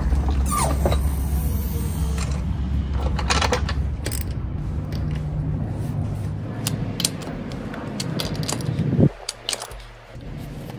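Socket wrench tightening wheel lug nuts: scattered metallic clicks and knocks of the ratchet and socket on the nuts, over a steady low hum that drops away suddenly about nine seconds in.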